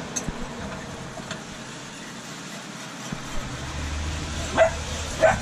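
A utensil stirring sauce in a small saucepan on a portable gas burner, with two sharp taps against the pan near the end, over a steady hiss. A low steady hum like an idling engine comes in about three seconds in.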